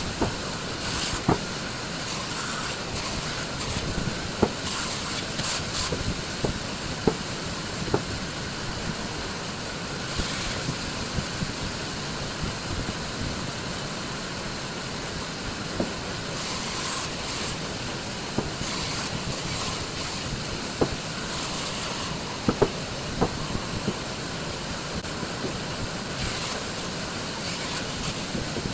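Wood being worked with hand tools: a steady hiss with scattered sharp clicks and taps at irregular times.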